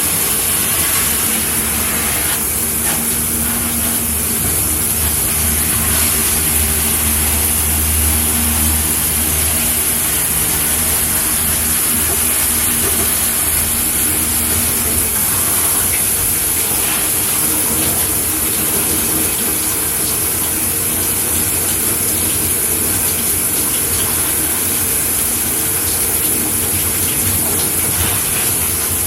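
Shower head spraying water steadily, a constant hiss of falling water. A low hum sits under it from about a second in until about halfway through.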